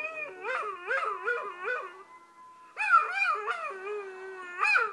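Dog howling in wavering cries that rise and fall about four times a second. One run comes in the first two seconds and a louder one from about three seconds in, with a short cry near the end.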